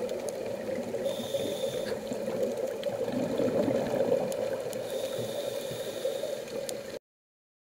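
Underwater ambience picked up by a submerged camera: a steady, muffled rush of water with scattered faint clicks. It cuts off abruptly about seven seconds in.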